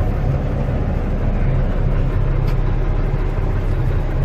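Mack ENDT673 Thermodyne turbocharged six-cylinder diesel of a 1978 Mack CF611 fire truck running at low speed as the truck rolls slowly along, heard from inside the cab: a steady low rumble.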